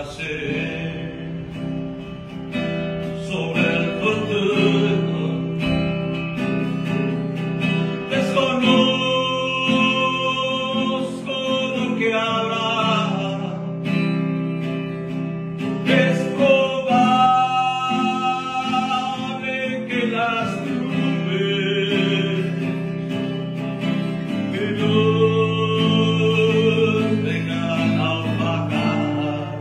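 A man singing a Spanish-language hymn while strumming an acoustic guitar.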